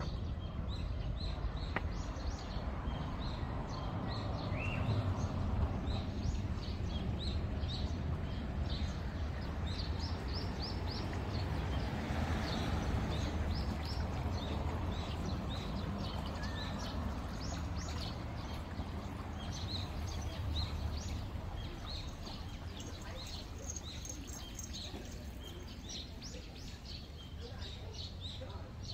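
Many small birds chirping, short high calls in quick succession, over a steady low background rumble.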